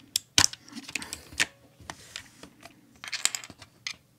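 Scattered sharp clicks and clacks from a mechanical keyboard fitted with blue switches as it is handled, one loud click about half a second in and a quick cluster near the end.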